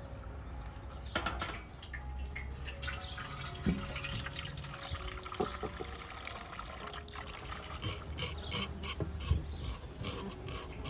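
Water splashing and dripping in a metal basin as beef hooves are rubbed and scraped clean by hand, with irregular short splashes and scrapes.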